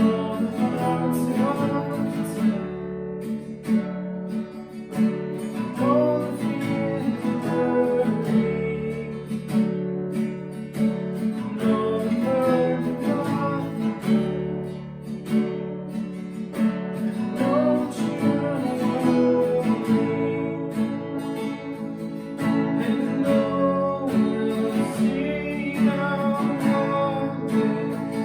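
Worship song played on a strummed acoustic guitar, with a voice singing over it.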